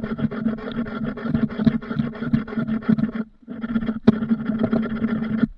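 Hand plane being pushed along the edge of a pallet-wood board, taking it down to a marked width. The strokes run as a continuous rasping scrape with a short break a little past three seconds, and the sound cuts off abruptly near the end.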